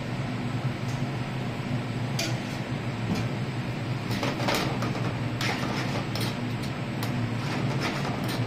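Metal spoon scraping and clinking against a frying pan as curry is stirred over a gas burner: irregular clinks from about two seconds in, more frequent from about four seconds. A steady low hum runs under it.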